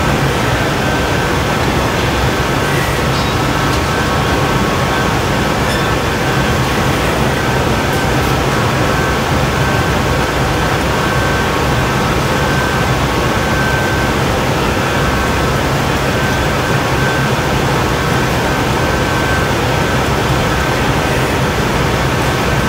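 Steady, even roar of a glassblowing hot shop's gas burners and blowers running, with a low hum and a thin high whine on top.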